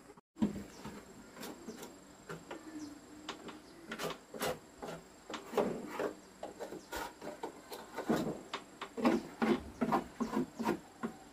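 A metal blade scraping caked dirt off the inside walls of an old wooden box in quick, irregular strokes, with loose grit knocking and rattling against the wood.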